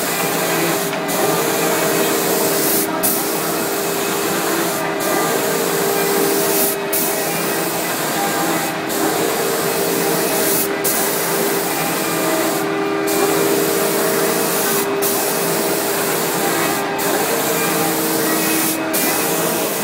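Automatic reciprocating spray-painting machine: compressed-air spray guns hissing steadily as the head sweeps across the panel, the hiss breaking off briefly about every two seconds. A steady machine hum runs underneath.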